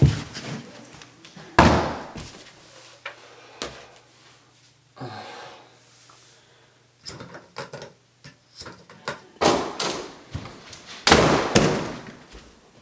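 A string of knocks and thumps, the loudest a door slamming near the end. About five seconds in, toilet paper is torn from its roll.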